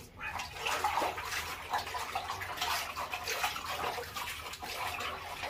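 Hands scooping and splashing water from a plastic washbasin while washing the face, in uneven splashes and sloshes.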